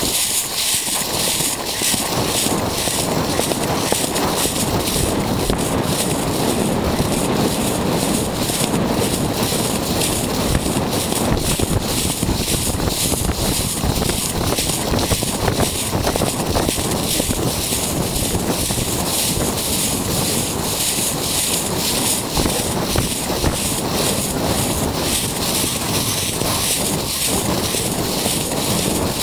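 Wind rushing over the microphone of a rider's camera during a horse's canter, with the horse's hoofbeats thudding under it.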